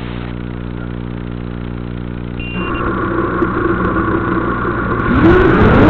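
Racing quadcopter's T-Motor F40 brushless motors spinning steadily at idle after arming. About two and a half seconds in the pitch steps up, and near the end the motor whine rises in a glide as the throttle comes up for takeoff.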